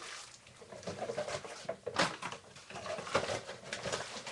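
Scattered knocks and clicks of pebbles and small objects being handled and set down on a tabletop, the sharpest about two seconds and three seconds in.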